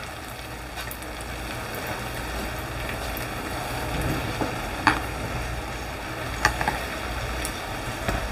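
Tomato and onion gravy sizzling gently in a frying pan. A few light knocks past the middle come as diced green capsicum is scraped off a chopping board into the pan.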